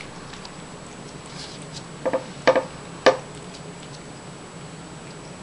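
Siamese cat eating wet canned cat food from a paper plate: faint small wet clicks of chewing and licking. Three short, louder sounds come about two to three seconds in.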